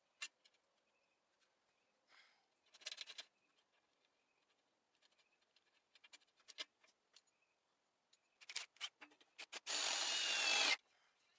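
Scattered light clicks and clatter of metal parts and tools being handled, then a power tool spins up and runs for about a second near the end.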